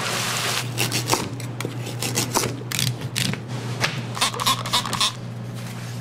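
Oil bubbling in a deep fryer for a moment, then a run of short scraping and scratching sounds from food prep on a cutting board, over a steady low hum.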